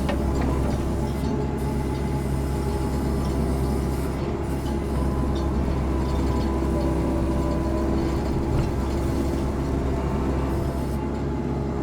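Compact excavator engine running steadily under load.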